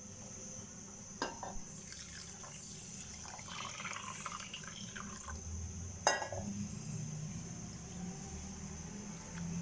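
Water running and splashing in a kitchen sink, as when washing ingredients under the tap, with two sharp knocks, about a second in and about six seconds in.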